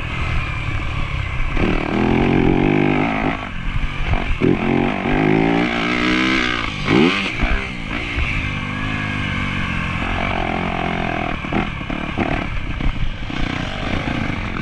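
Yamaha YZ250F's 250 cc single-cylinder four-stroke engine under riding load, revving up and backing off repeatedly, with the pitch climbing and dropping as the throttle is worked; about seven seconds in the revs fall sharply and climb straight back.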